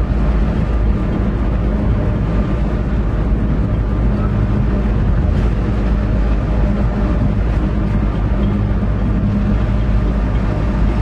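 EMD GP9R diesel-electric locomotive's 16-cylinder 567 engine running steadily, heard inside the cab as the train rolls along the track.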